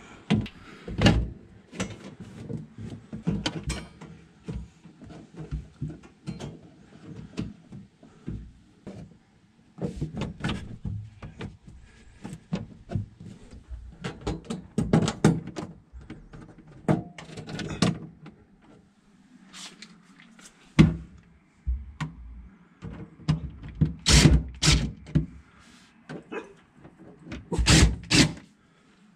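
Plastic refrigerator panels and parts knocking and clattering as they are handled and fitted back into the freezer compartment. Near the end a cordless DeWalt driver runs in two short bursts, driving the panel screws.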